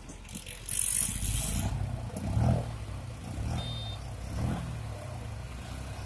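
Caterpillar 120K2 motor grader's diesel engine running as the machine drives forward with its blade cutting through soil, growing louder as it comes closer about a second in, with some rattling.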